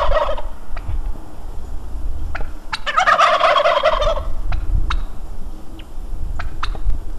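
White domestic tom turkey in strut display gobbling: the end of one gobble right at the start, then a full rapid, warbling gobble of a bit over a second about three seconds in. Scattered sharp clicks come between the calls.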